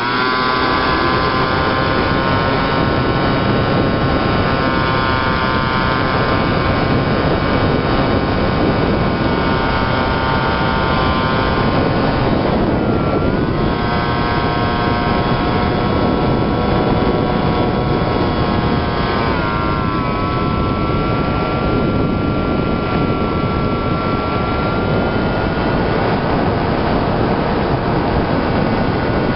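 The motor and pusher propeller of a homemade RC plane, heard from its onboard camera, running at high power with a rushing noise. The whine dips and recovers about 13 seconds in and again around 20 seconds, then holds a slowly rising tone.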